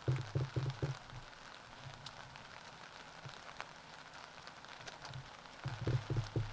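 Wind buffeting the microphone in irregular low rumbling gusts, loudest in the first second and again near the end, over a steady outdoor hiss.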